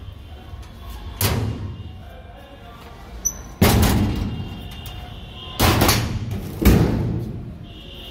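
Four loud, irregular thuds and knocks from the doors of a steel almirah (cupboard) being swung and handled. Each thud trails off briefly. Background music plays underneath.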